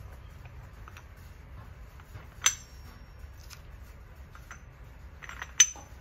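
Two sharp metal-on-metal clinks about three seconds apart, as a crimping die is fitted into the head of a CO-630H hydraulic crimper. The first rings briefly, and faint handling clicks come in between.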